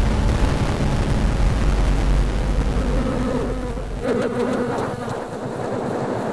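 Honey bees buzzing over a dense, noisy background with a low rumble that drops away about four seconds in.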